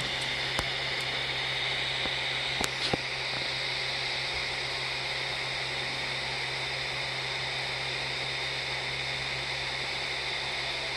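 3D printer running: the steady whir of its fans over a low hum, with a few light clicks in the first three seconds.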